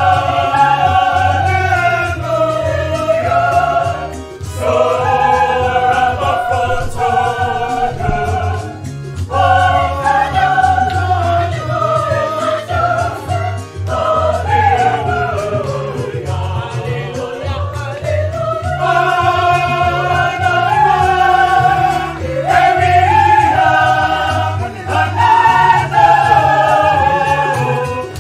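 Mixed choir of men's and women's voices singing a gospel-style tune in harmony, in phrases of a few seconds with short breaks between.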